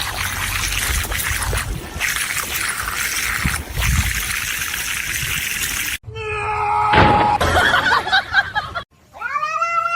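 A steady hiss for about six seconds, then, after a cut, a domestic cat meowing. Near the end comes one drawn-out meow that rises and then falls in pitch.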